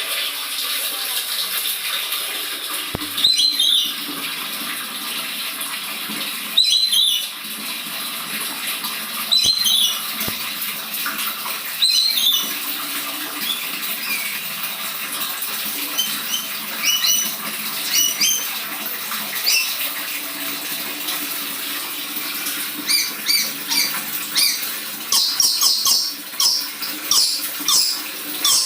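Red lory giving fierce calls, one about every three seconds at first, then shorter calls coming faster and in quick runs in the second half, over a steady background hiss.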